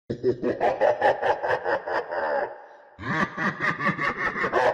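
A man laughing in quick, even pulses: two long runs of laughter with a short pause for breath about halfway through.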